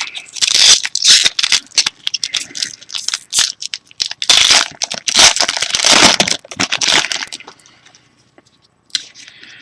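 Trading-card pack wrapper being torn open and crinkled by hand, a run of loud crackling rustles that stops about seven and a half seconds in.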